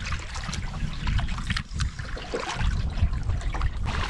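A pack canoe being paddled with a double-bladed paddle: water trickles, drips and splashes lightly off the blades in many small irregular ticks. Underneath is a low rumble of wind on the microphone.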